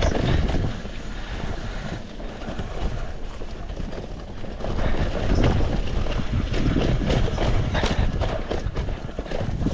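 Wind rushing over a GoPro's microphone during a fast mountain-bike descent on a wet trail, with tyre noise and frequent knocks and rattles from the bike over rough ground. It eases off for a few seconds, then grows louder again about halfway through.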